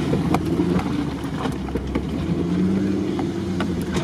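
Car engine running at low revs, heard from inside the cabin while driving slowly on a rough dirt road; the engine note shifts about halfway through, and a few short knocks sound.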